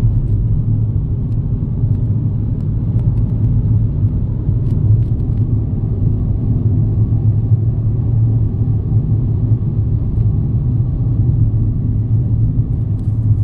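Steady low rumble of a car cruising on a highway, heard from inside the cabin: engine and tyre noise holding an even level.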